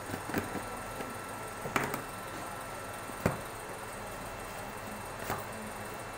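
A cardboard smartphone box being handled on a table: four light knocks and taps as the lid comes off and the box parts are set down, the sharpest about three seconds in.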